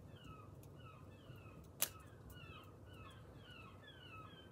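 Wood fire in a metal fire pit crackling, with one sharp loud pop a little under halfway through. Behind it a bird calls in quick short falling notes, about three a second.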